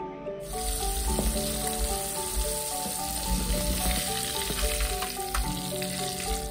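Hot oil sizzling in a wok as flour-battered salted fish fries, starting about half a second in, over soft background music.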